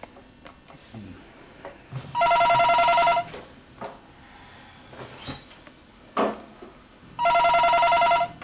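Landline telephone ringing: two rings about a second long each, roughly five seconds apart, each a fast trilling electronic ring.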